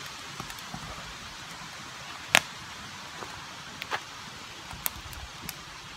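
Wood campfire crackling: scattered sharp pops over a steady hiss, the loudest about two and a half seconds in.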